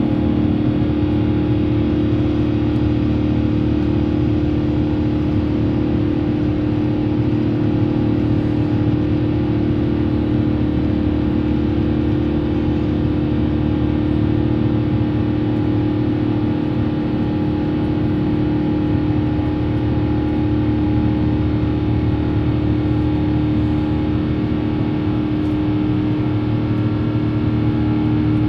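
Rolls-Royce Trent XWB turbofan engines of an Airbus A350-900 heard from inside the cabin during the climb after takeoff: a steady drone with a strong constant hum over the rush of air.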